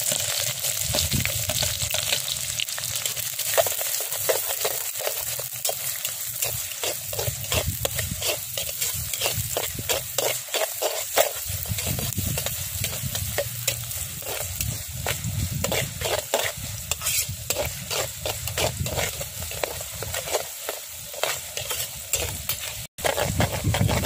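Chopped onions sizzling in hot groundnut oil in a clay pot, with a metal spatula scraping and clicking against the pot as they are stirred and sautéed.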